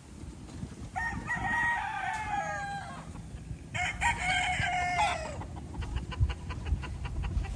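Young gamecocks (stags) crowing: two long crows, one after the other, the second starting about a second after the first ends.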